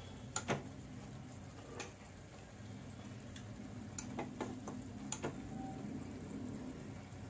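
Metal ladle clicking and knocking against a nonstick kadai while stirring upma, a handful of sharp clicks at uneven intervals, some in quick pairs, over a steady low hum.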